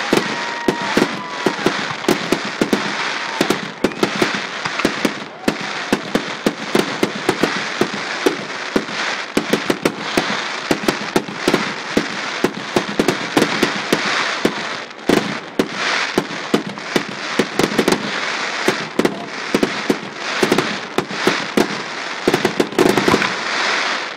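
Fireworks going off overhead in a dense barrage: a continuous crackle with many sharp bangs close together, with no break.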